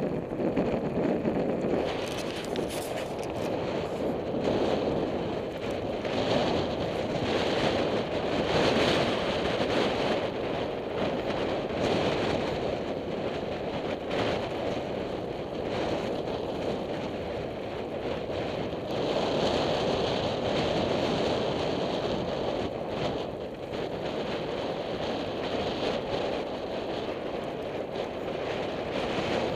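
Strong wind gusting and buffeting the microphone, a steady rush that swells and eases every few seconds.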